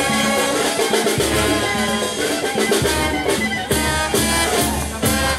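Brass band music: horns playing a tune over drums with a steady beat.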